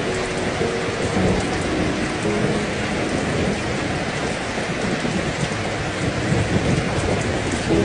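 Heavy rain falling steadily, an even dense hiss with a low rumble underneath.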